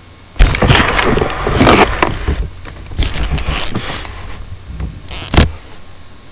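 Loud handling noise from the camera being picked up and moved: irregular rubbing, rattling and knocking close to the microphone. It starts about half a second in and ends with a sharp knock about five seconds in as the camera is set down.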